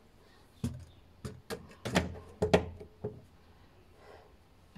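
A quick series of about eight knocks and thumps, bunched over two and a half seconds and loudest near the middle, as furniture is handled and shifted.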